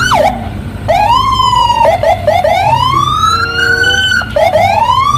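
Police car siren sounding in rising and falling pitch sweeps. Long slow wails climb and drop, broken twice by a few quick yelps, over a steady low hum.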